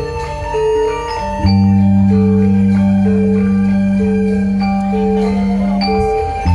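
Javanese gamelan music: metal mallet instruments strike a repeating pattern of notes, about two a second, over a deep steady bass tone that comes in about a second and a half in and breaks off briefly near the end.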